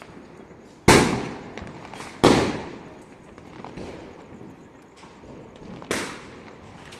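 Diwali firecrackers bursting: three loud bangs, about a second in, just after two seconds and near the end, each with an echoing tail that dies away over about a second, with fainter scattered pops between.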